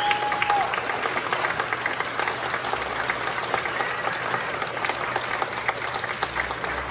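Audience applauding: a dense patter of many hands clapping, with a brief whistle near the start.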